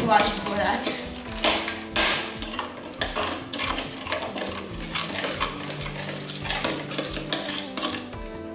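Metal spoon stirring thick, foamy slime in a glass bowl, clinking and scraping against the glass in quick, irregular strokes.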